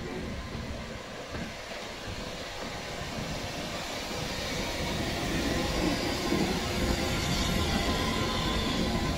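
Steam train of a class 86 tank locomotive and passenger coach moving on the track, with rail and running noise that grows steadily louder toward the end.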